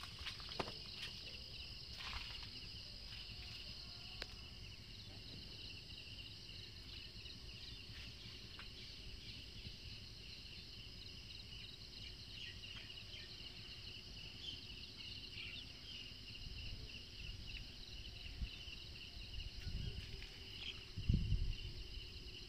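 Insects chirring steadily in a dense chorus at two high pitches, with a few low bumps near the end.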